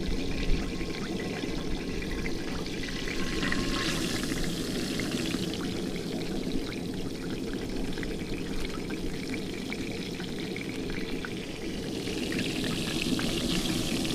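Walleye fillets frying in hot oil: a hissing sizzle over a steady low rush, swelling about four seconds in and again near the end.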